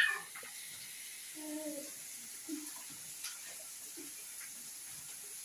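Kitchen tap running steadily into a steel bowl in the sink while food is washed by hand, with a few faint knocks. About one and a half seconds in there is a brief, faint, low voice-like sound.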